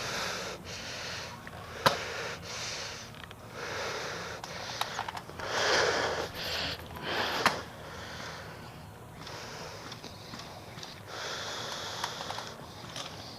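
A person breathing hard close to the microphone, a steady run of noisy in-and-out breaths, with two sharp clicks, one about two seconds in and one past the middle.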